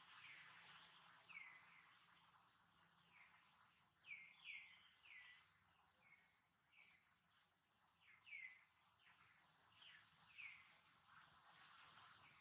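Faint insect chorus outdoors: a high, steady pulsing trill at about four pulses a second, with short chirps falling in pitch scattered through it.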